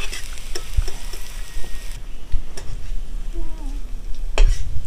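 Mixed vegetables sizzling in oil in a kadai while a metal spatula stirs and lifts them out, with a few sharp knocks of the spatula against the pan. The sizzle softens sharply about two seconds in.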